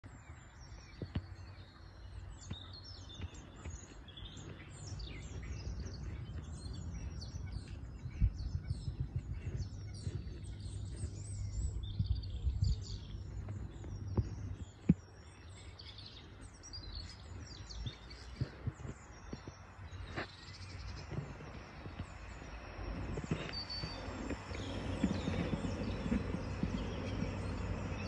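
Small songbirds chirping and twittering in many short high calls over a steady low outdoor rumble, with a few sharp knocks.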